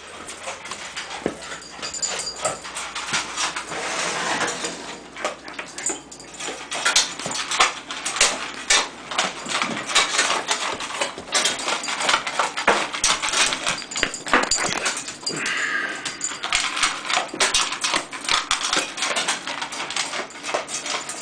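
A dog eating from a stainless steel bowl on a tile floor: a fast, steady run of crunching and clicking as food and teeth knock against the metal bowl.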